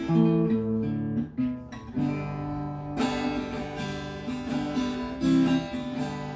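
Acoustic guitar music: chords strummed one after another, each starting sharply and ringing on.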